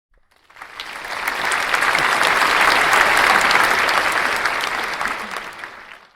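Crowd applause, many hands clapping as a dense patter. It fades in about half a second in, holds steady, and fades out near the end.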